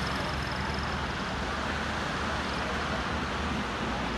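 Road traffic on a highway: buses and cars passing, a steady rush of engines and tyres with a low engine hum that eases off after about three seconds.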